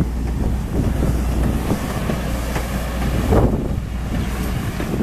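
Heritage passenger coaches of a steam-hauled train rolling past on the track, the steel wheels rumbling with irregular clacks over the rails. Wind rumbles on the microphone underneath.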